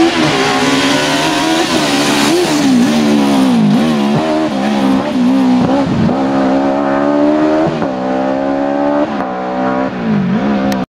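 Suzuki Swift rally car's engine revving hard as it drives through the turns and pulls away, the pitch rising and dropping several times. The sound cuts off suddenly near the end.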